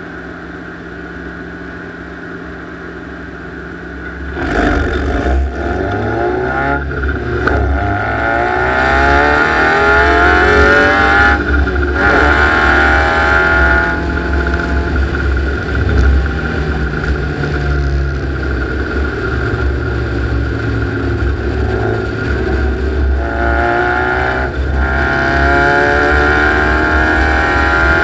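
Onboard sound of the Death Buggy's engine: idling steadily, then pulling away about four seconds in and accelerating. Its pitch rises and breaks at several gear changes, later easing off and climbing again as it drives on.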